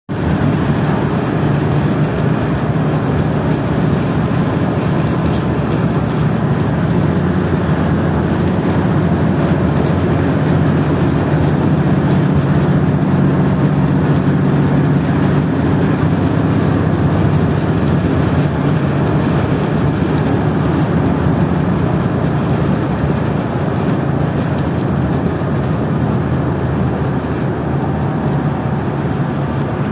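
Steady cabin noise of a moving road vehicle: a low engine hum under continuous tyre and road rumble, even throughout.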